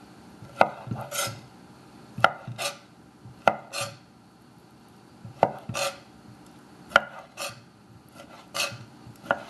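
Chef's knife slicing roasted red peppers into strips on an end-grain wooden cutting board: about six slow strokes, each a sharp tap of the blade on the board followed by a short scrape.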